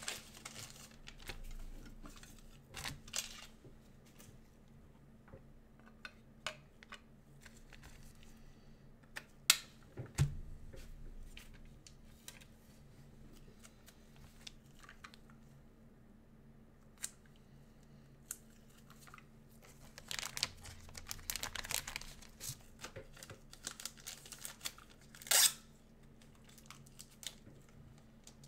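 Trading cards and their plastic packaging handled at a desk: scattered rustling, crinkling and light clicks, with a sharp knock about ten seconds in and a louder rustle near the end.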